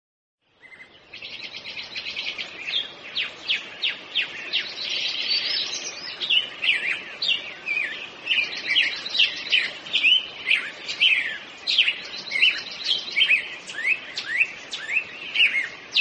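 Several birds singing together: fast trills and many short, high chirps and falling whistles, beginning about half a second in.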